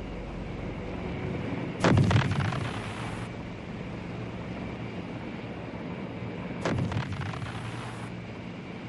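Two heavy artillery blasts about five seconds apart, each sudden and dying away over about a second, over a steady low drone.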